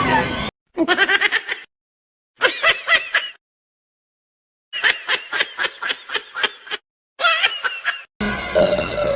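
A cartoon character's high-pitched, rapid stuttering laugh in four bursts, each cut off by dead silence. Background music stops just before the laughing and comes back near the end.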